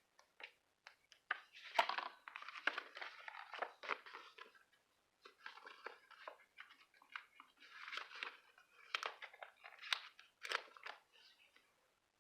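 Paper and sticker sheets handled close to the microphone: crinkling and rustling in irregular bursts with small sharp clicks and taps, pausing briefly about five seconds in.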